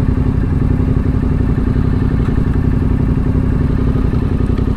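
Yamaha 689 cc parallel-twin motorcycle engine running steadily under way on the road.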